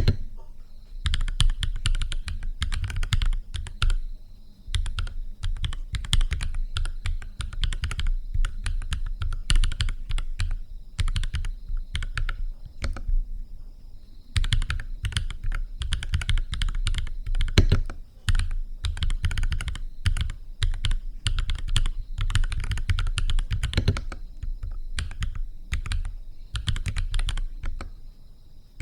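Typing on a NuPhy Halo 65 mechanical keyboard with Gateron Baby Kangaroo tactile switches: fast runs of keystrokes broken by brief pauses.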